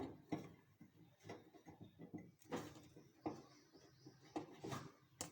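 Rubber gas hose being pushed and worked by hand onto a gas stove's inlet nozzle: faint, irregular knocks and rubbing.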